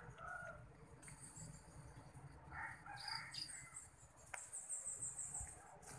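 Faint background of distant bird calls, with a short run of high chirps about two-thirds of the way in and a single sharp click just before it.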